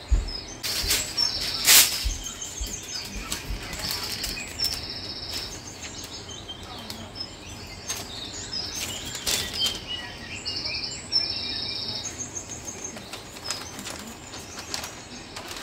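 A sheet of parchment paper rustling and crinkling as it is handled, with scattered light clicks, loudest about two seconds in. Small birds chirp in short, repeated high trills in the background.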